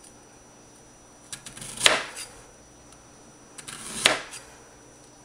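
Kitchen knife chopping through a peeled white radish and striking a plastic cutting board: two chops about two seconds apart, each with a light click just before it, slicing off thick rounds.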